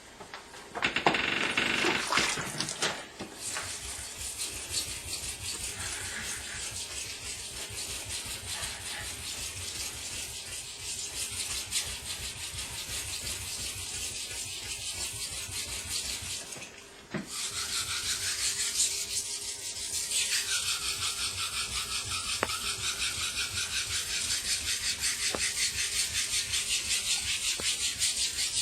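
Knife blade being ground back and forth by hand on a 1000-grit Japanese water stone in quick, even strokes, with a short pause about 17 seconds in. The grinding is taking the chips out of the edge.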